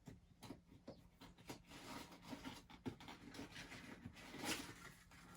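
Faint rustling, scraping and light taps of hands handling a new leather boot and its packing.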